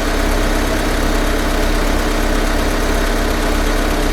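Honda Civic engine idling steadily, with freshly changed power steering fluid.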